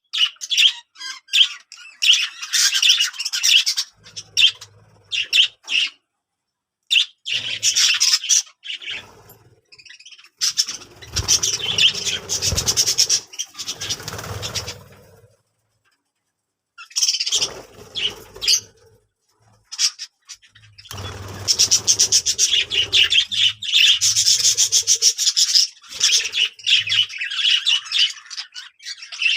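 Small birds chirping and twittering in quick, high-pitched bouts, with several pauses between bouts. A couple of low knocks sound about halfway through.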